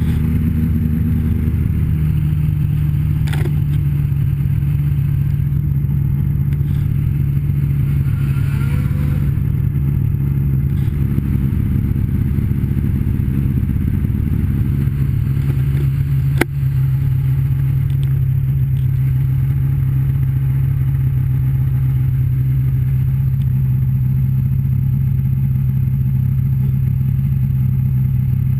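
Snowmobile engine running steadily at cruising speed, its pitch dipping slightly about two seconds in. A sharp click cuts through about sixteen seconds in.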